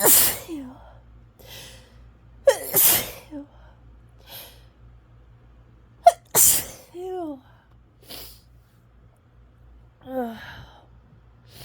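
A woman sneezing hard three times in an allergy fit, the sneezes about two and a half and three and a half seconds apart, each a sharp catch followed by a burst. Sniffs fall between them, and short voiced sounds falling in pitch come after the last sneeze and again near the end.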